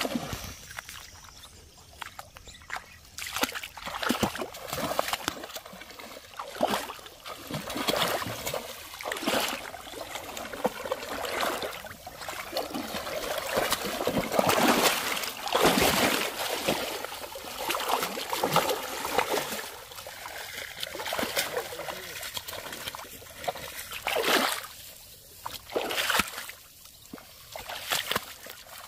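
A hooked rohu thrashing at the water's surface while it is played in, in irregular splashes of about a second each, the biggest about halfway through. Near the end it flaps and splashes in a shallow muddy puddle.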